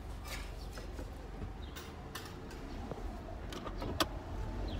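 Steady low rumble of a car heard from inside the cabin, with scattered small clicks and rustles.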